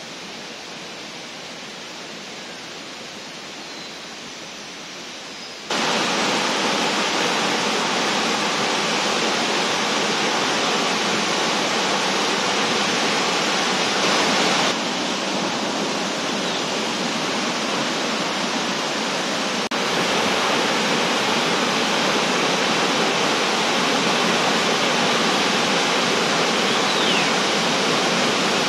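Steady rushing of a waterfall, loud and even, starting abruptly about six seconds in and shifting slightly in level twice after that. Before it there is a fainter steady hiss.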